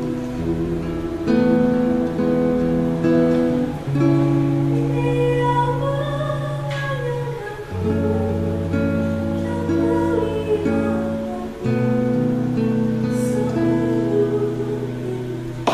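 Acoustic guitar strumming slow chords that change every second or two, accompanying a woman singing a gentle worship song.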